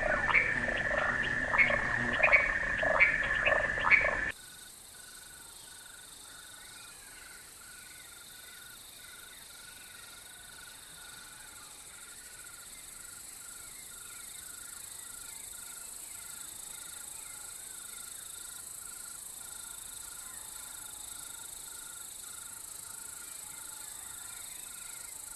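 Wild animal calls in a chorus. For the first four seconds there are loud repeated calls over a steady high tone. The sound then changes abruptly to a fainter steady high hiss with a short call repeating about twice a second.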